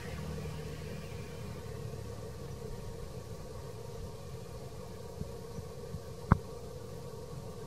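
A motor humming steadily, with one sharp click about six seconds in.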